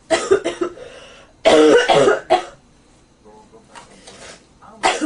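A person with a cold coughing in bouts: a quick cluster of short coughs, a longer, loud, harsh cough about a second and a half in, another short one just after, then fainter coughs and one last sharp cough near the end.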